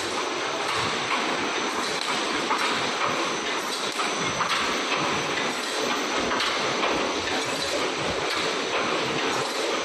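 Wire mesh welding machinery for 3D EPS panels running, a continuous dense mechanical clatter with many small clicks.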